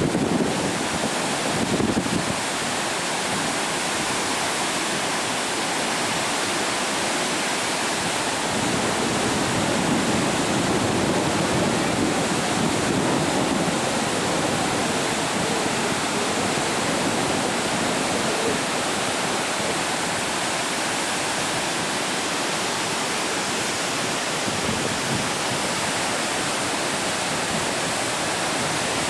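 Steady rush of fast tidal water from the Falls of Lora rapids under Connel Bridge, an even roar with no breaks.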